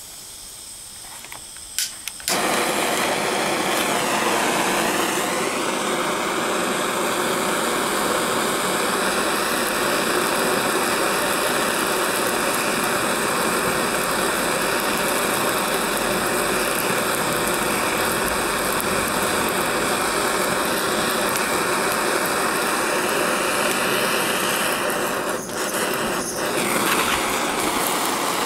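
Gas blowtorch flame burning loudly and steadily against a thin fibreglass (GRP) panel. Before it, a faint gas hiss and a couple of clicks; the loud flame comes on suddenly about two seconds in and holds, with brief dips near the end.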